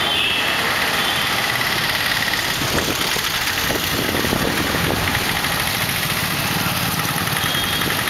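Two-wheeler engine running steadily amid town street traffic.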